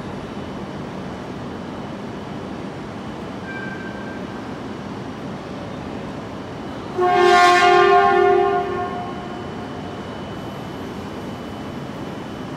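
A shinkansen horn sounds once, loud and held for about two seconds about seven seconds in, as the E6-series Komachi creeps up to couple with the Hayabusa. A steady rail and station hum runs underneath.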